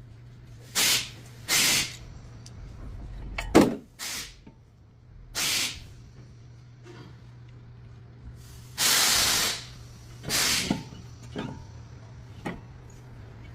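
Short hissing spray bursts, about six of them, the one near the middle lasting about a second, with a sharp knock between them and a steady low hum underneath.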